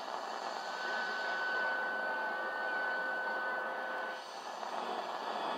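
GE 7-2877H radio's AM band giving static hiss between stations while being tuned, with a steady whistle tone that comes in about a second in and stops about four seconds in.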